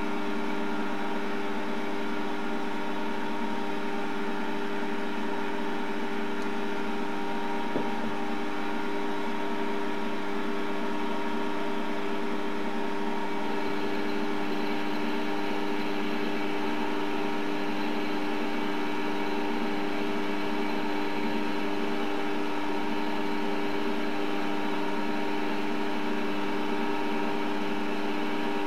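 Optimum D180x300 mini lathe running at a steady speed, its motor and drive gearing giving a constant whine of several fixed tones while the tool turns a taper on the spinning workpiece. One small click about eight seconds in.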